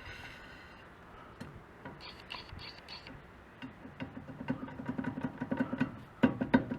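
High-pitched squeak from the front wheel hub of a Suzuki Jimny JA11, heard in two short stretches: the squeal that led the owner to a loose, worn front hub bearing. Plucked guitar music comes in about four seconds in and grows louder.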